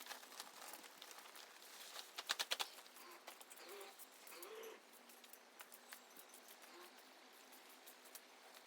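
A dove cooing softly a few times, with a quick run of sharp taps about two seconds in.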